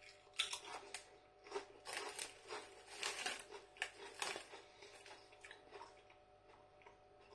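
Walkers potato crisps being bitten and chewed: a run of irregular crunches, thickest between about half a second and four and a half seconds in, then thinning out.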